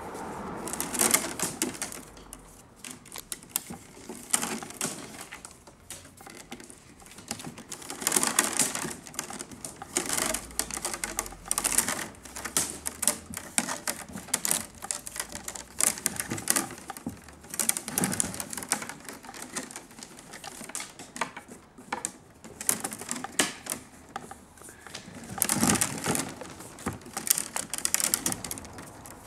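Wicker rods creaking, clicking and rustling as they are woven between the upright stakes of a basket by hand, in irregular clusters of crackly clicks every few seconds.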